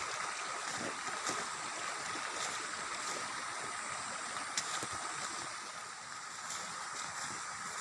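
Faint, steady rush of flowing water from a stream or waterfall.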